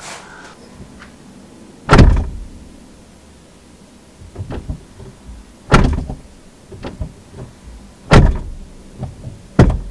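A Tata Nexon's front door being shut four times, each a heavy slam, with lighter clicks of the handle and latch between the slams, heard from inside the cabin.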